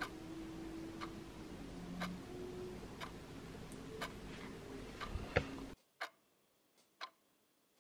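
A clock ticking about once a second over faint room hum. The hum cuts off suddenly near the end, leaving only the ticks.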